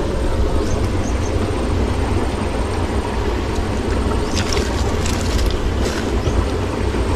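Wind buffeting the microphone outdoors, a steady low rumble. A few light clicks and rustles come about four to six seconds in as hands pick through shells and dry leaves on a mesh net.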